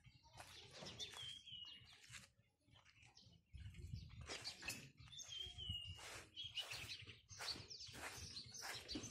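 Faint bird chirps, with one bird giving a short falling whistle twice, about a second in and again near the middle. A low rumble joins about a third of the way through.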